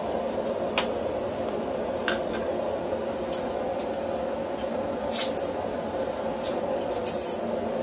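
A steady roar of workshop background noise, with a couple of faint light clicks and several short scraping hisses as tools are handled on the anvil.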